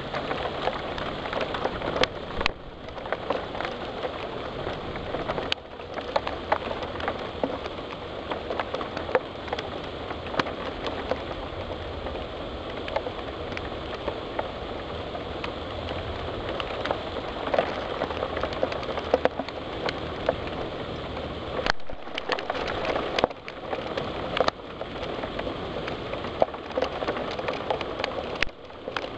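Heavy storm rain pattering on a window pane: a steady dense hiss full of sharp drop ticks, with a few brief dropouts.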